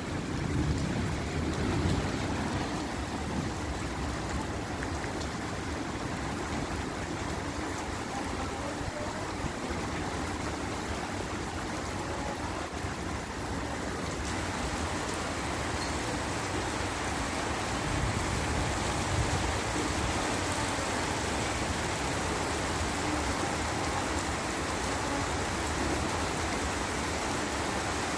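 Heavy rain falling on a wet, puddled street, a steady hiss of water. About halfway through, the hiss turns brighter and fuller.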